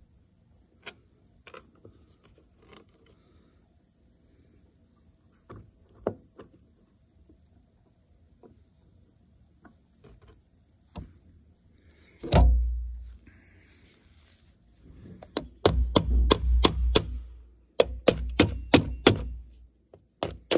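Sharp knocks on metal as a connector flange is persuaded into its mounting on a metal shelter door: scattered light clicks, one heavy thump about twelve seconds in, then two quick runs of knocks, about four a second, near the end. Insects buzz steadily throughout.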